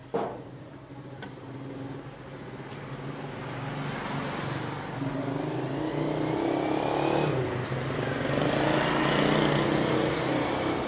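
A sharp click, then a Mitsubishi sewing machine running on its electric motor, speeding up and growing louder with a rising whine.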